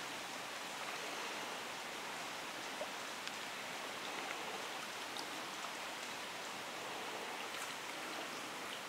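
Steady, even rushing hiss of flowing stream water, with a few faint ticks scattered through it.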